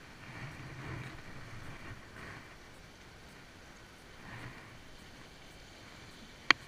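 Gusts of wind buffeting the microphone over the faint wash of the sea on rocks, swelling in the first couple of seconds and again briefly past the middle. A single sharp click near the end.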